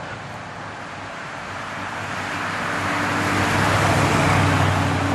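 1958 Dodge Regal Lancer with its 350 cubic-inch V8 driving past. The engine note and road noise grow louder as it approaches, peak as it passes close about four seconds in, then begin to fade.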